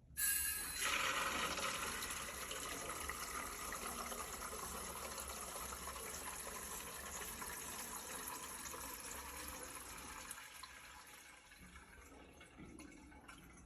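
Water rushing through newly installed plumbing on its first start-up. It starts suddenly, runs as a steady rush, and eases off over the last few seconds.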